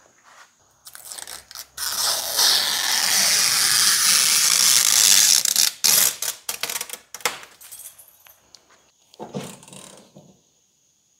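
Ratchet wrench tightening the nuts on the strut towers. A loud, unbroken stretch of ratcheting starts about two seconds in and lasts nearly four seconds. Then come a few separate clicks and a knock near the end.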